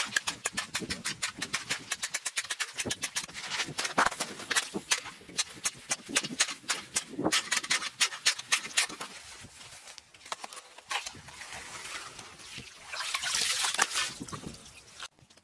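Ice chisel striking and chipping the ice around a fishing hole, rapid sharp chops several times a second, thinning out after about ten seconds. A short scraping rush of ice and slush follows near the end, then the sound cuts off suddenly.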